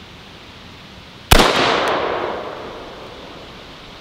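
A single AR-15 rifle shot about a second in, sharp and loud, followed by an echo that dies away over about a second and a half.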